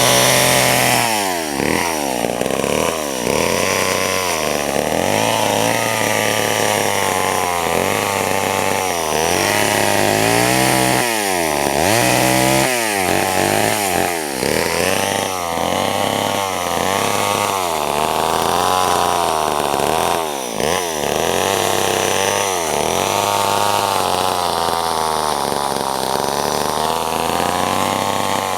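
Vintage Homelite two-stroke chainsaw running loud, its engine pitch repeatedly dropping and rising again.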